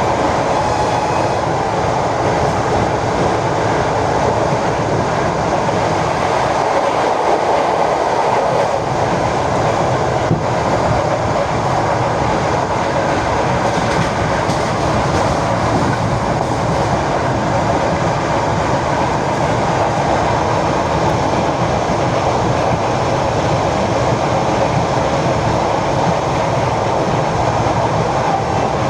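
ED4M electric multiple-unit train running along the line, heard from on board: a steady rolling rumble of wheels on rail with a few faint clicks.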